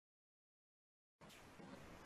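Near silence: dead silence, then about a second in the faint hiss of room tone comes in as the audio returns.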